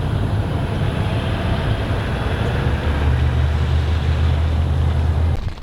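An engine running with a steady low rumble, cutting off abruptly near the end.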